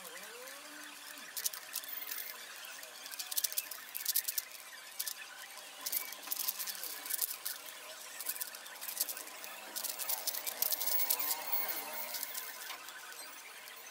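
Plastic 5x5 puzzle cube being turned fast in the hands: rapid runs of clicks and clacks as its layers snap round, in bursts with short pauses between them.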